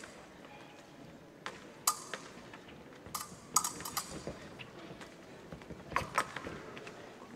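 Épée blades clicking and clashing against each other in three short clusters, about a second and a half, three and a half and six seconds in, each clash ringing briefly, with fencers' feet stamping on the piste.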